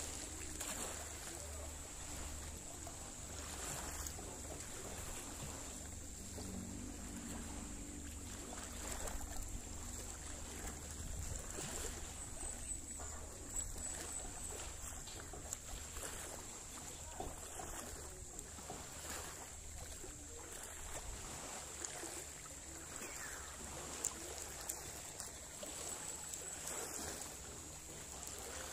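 Small waves lapping against the hull of a small fishing boat on calm sea, with scattered light knocks and a steady low rumble underneath.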